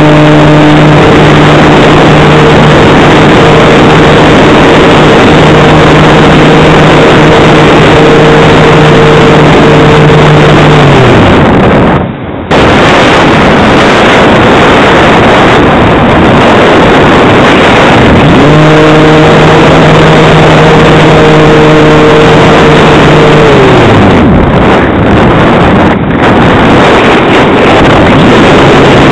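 Wind rushing over the microphone of an onboard camera on an RC Calypso glider in flight, with the glider's motor and propeller drone rising in at the launch. The motor winds down and stops about eleven seconds in, then runs again from about eighteen to twenty-four seconds.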